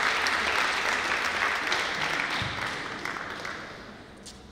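Audience applauding as a three-cushion billiards match ends, the clapping dying away about three to four seconds in.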